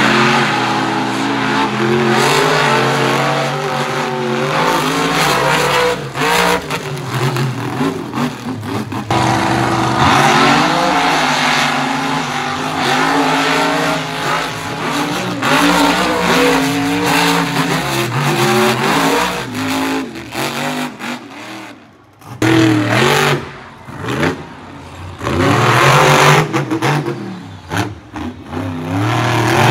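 Monster truck engines revving hard and easing off again and again as the trucks race, with a short lull about three-quarters of the way through.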